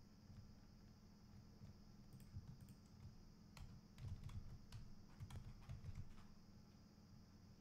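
Faint, scattered clicks of a computer keyboard and mouse, busiest in the middle, over a low steady hum.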